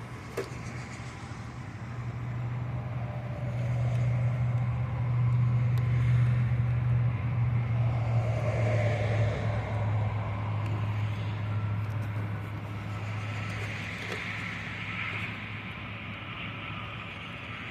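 A motor vehicle going past: a low engine hum that grows louder, drops a little in pitch about seven seconds in, then fades away.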